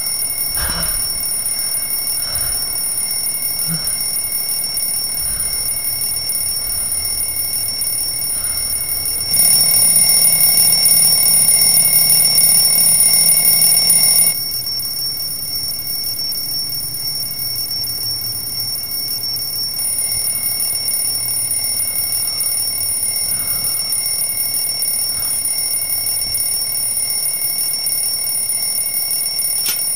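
Twin-bell alarm clock ringing continuously with a high, steady tone. It gets louder for about five seconds near the middle.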